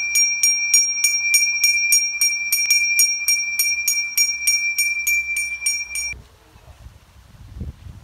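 A priest's small brass hand bell rung rapidly and evenly during an arati offering, about five strokes a second on a clear high ring. The ringing stops abruptly about six seconds in, leaving faint wind noise.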